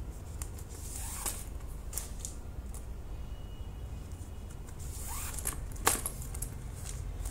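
Yarn and crocheted fabric handled while pieces are stitched together: scattered soft scratchy rustles and light clicks, with a couple of short rising swishes as the yarn is drawn through the stitches, over a steady low hum.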